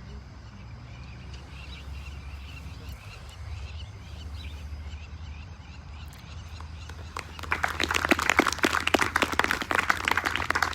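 Birds chirping faintly over a low steady hum, then about seven seconds in an audience bursts into loud applause that runs on to the end.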